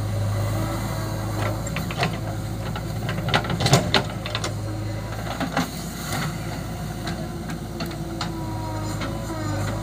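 Diesel engine of a JCB 3DX backhoe loader running steadily while it works, with a burst of knocks and clatter about three and a half seconds in as the bucket tips soil into a tractor trailer, and a few scattered clunks after.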